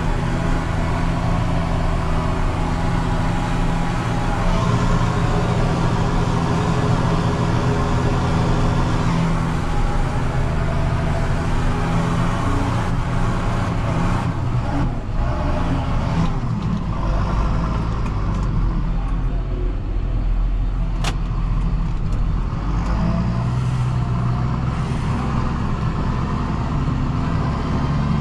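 John Deere 6930 tractor's six-cylinder diesel engine running steadily while pulling a Väderstad Cultus 350 cultivator. The tone shifts lower for several seconds past the middle, then comes back.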